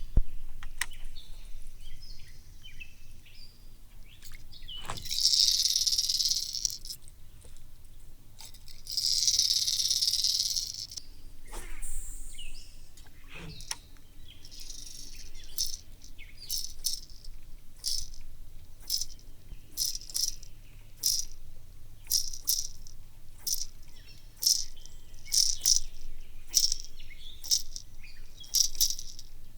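Strike King KVD 200 hard suspending jerkbait heard underwater through a hydrophone: two long hissing rushes of water about five and nine seconds in, then sharp clacks of its internal rattles and weights, about one to two a second, through the second half.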